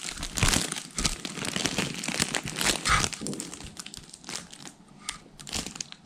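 Crinkly fabric of a cat tunnel crackling and rustling as a cat pushes through it, in irregular crackles that thin out after about four seconds.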